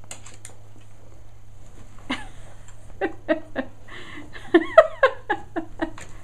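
Small dog grunting in a quick run of short sounds, about three a second, while burrowing and wriggling in a fleece-lined cave dog bed. The grunts start about two seconds in and are loudest near the end.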